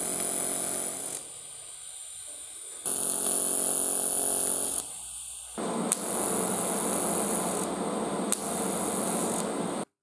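TIG welding arc buzzing on small steel parts. It comes in three stretches with short quieter gaps between them; the last stretch is rougher and hissier, with a couple of sharp clicks, and the sound cuts off near the end.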